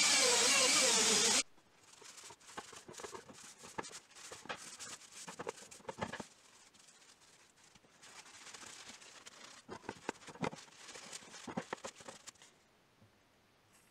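A paper towel rubs and buffs polishing paste off the steel head of Knipex end-cutting pincers, with irregular crinkling, rustling and small ticks. Before that, a loud whir, as of a power tool, runs for about a second and a half and cuts off suddenly.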